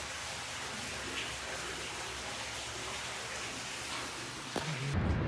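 A steady, even hiss of noise with no clear pitch or rhythm. About five seconds in it gives way abruptly to a louder low rumble.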